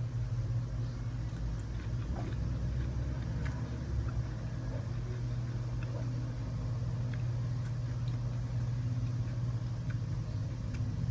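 A steady low engine-like hum, with a few faint clicks over it.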